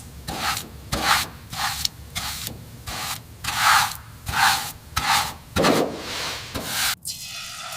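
Hand sanding: repeated back-and-forth rubbing strokes, about three every two seconds. Near the end it cuts off sharply and a steady hiss takes over.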